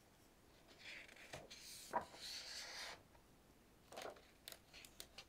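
A page of a picture book being turned by hand: a faint papery swish lasting a couple of seconds, then a few soft taps and clicks as the page is laid flat.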